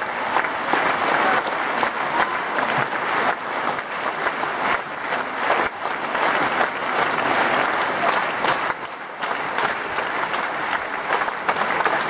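Theatre audience applauding: many hands clapping densely and steadily, with a short dip in loudness about nine seconds in.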